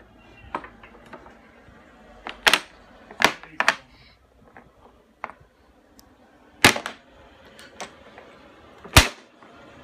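Dominoes clacking against each other and against a wooden tray as a small child handles them: a handful of sharp, separate clacks at uneven intervals, the two loudest in the second half.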